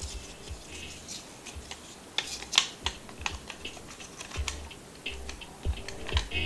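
A run of irregular sharp clicks and taps, several close together about two to three seconds in, over low rumbling handling noise.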